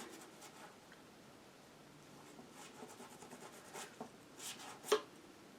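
Faint strokes of a paintbrush brushing acrylic paint onto canvas, with a sharper tap near the end.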